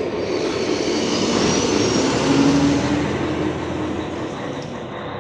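A loaded diesel semi-trailer truck driving past close by. Its engine and tyres grow louder to a peak about halfway through, then start to fade.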